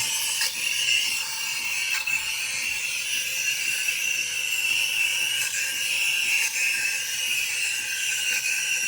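Breville Barista Express steam wand steaming whole milk: a steady, loud, shrill hiss that keeps up without a break.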